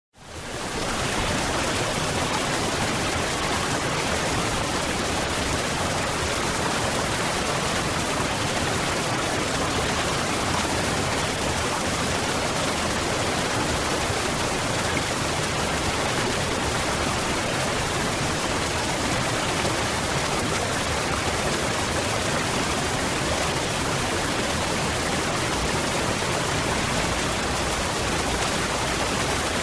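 Waterfall: a steady, even rush of falling water that fades in from silence over the first second.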